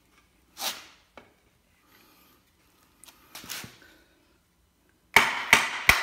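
A wooden branch knocking on the back of a stainless-steel camping multitool's hatchet head, driving its blade into a board. The blows come in quick succession, about three a second, near the end, each with a short metallic ring. Before them there are two brief, quieter knocks.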